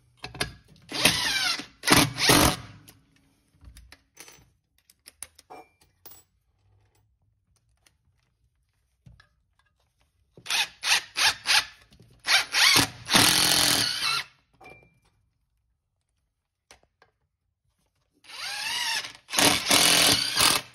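Cordless drill driving screws through a steel anti-tip bracket into the floor and wall, in three runs of a few seconds each: about a second in, at about ten seconds, and near the end. The motor's whine bends in pitch as the load changes.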